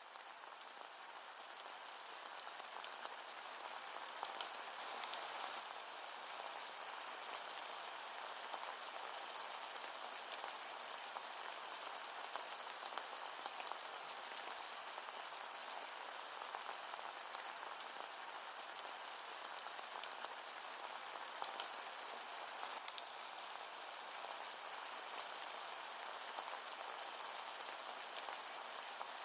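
Food sizzling in hot oil in a pan: a steady crackling hiss full of fine pops, fading in over the first couple of seconds.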